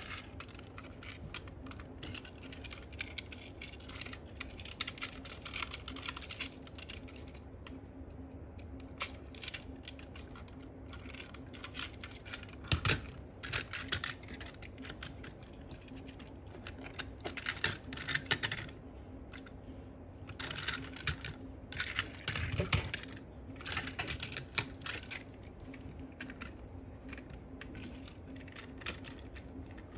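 Plastic toy train parts being handled: scattered clicks, taps and light rattles as the cars are coupled and set on a plastic track, coming in short clusters with pauses between.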